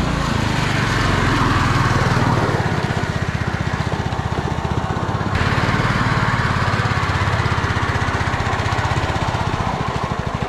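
Small single-cylinder engine of a long-tail propeller drive on a motorised surfboard, running steadily at speed with a rapid buzzing firing rhythm as the board is driven across the water.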